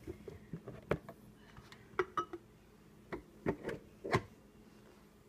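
A blender jar being gripped and handled on a countertop near drinking glasses: a scatter of light knocks and clicks, the sharpest about four seconds in.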